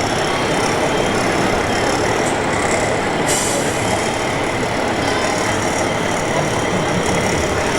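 Large-scale radio-controlled construction models working, giving a steady mechanical running noise with a faint high motor whine.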